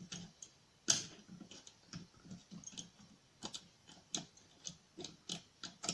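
Irregular small metallic clicks and ticks from lock picks working inside a small two-lever lock and the lock's bolt being moved, with one sharper click about a second in.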